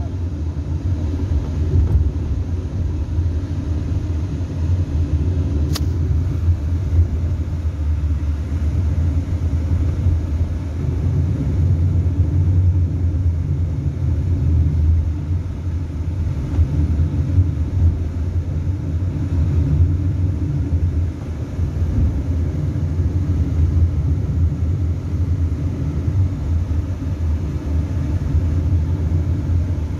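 Steady rumble of a car's engine and tyres heard from inside the cabin while driving along a highway. A single short click comes about six seconds in.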